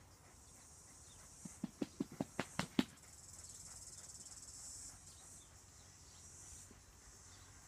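Faint steady chirring of insects, with a quick run of about eight sharp clicks, getting louder, a second and a half in.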